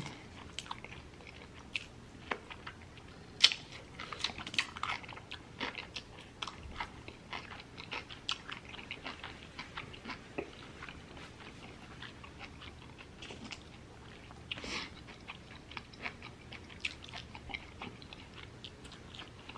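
A person chewing food close to the microphone, with irregular soft mouth and teeth clicks and small crunches. One sharper click comes about three and a half seconds in.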